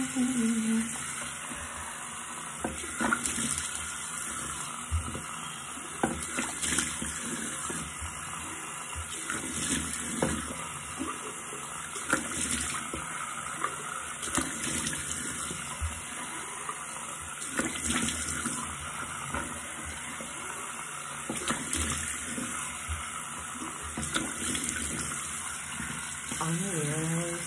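A tap runs into a sink with irregular splashes as soap lather is rinsed off a face with the hands.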